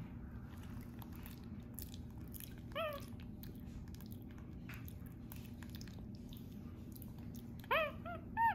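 Capuchin monkey chewing a soft banana, with faint wet mouth clicks. He gives one short chirp about three seconds in, then a quick run of chirping calls near the end.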